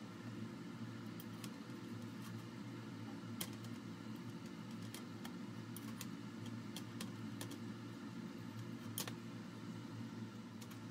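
A spatula clicking and tapping against a non-stick frying pan while an omelette is shaped: light, irregular clicks over a steady low hum.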